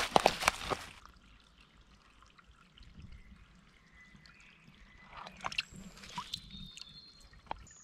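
Footsteps on stones and dry leaves at the edge of a shallow forest stream, then the faint trickle of the stream. From about five seconds in, water splashes and dribbles as a collapsible water pouch is dipped in and filled.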